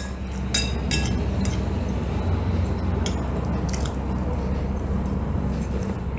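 Metal fork and knife clinking and scraping on a ceramic plate as food is cut, with several sharp clicks in the first second and a half and two more a couple of seconds later, then close-up chewing. A steady low hum runs underneath.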